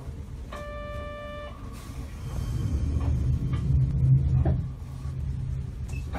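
Inside a Sapporo streetcar standing at a stop: a buzzer tone sounds for about a second, about half a second in. A low rumble then swells for a couple of seconds and settles, over the tram's steady low hum.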